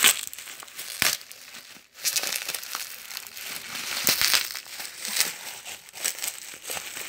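Plastic bubble wrap crinkling and rustling as hands pull it apart to unwrap a package, with many sharp irregular crackles and a brief lull about two seconds in.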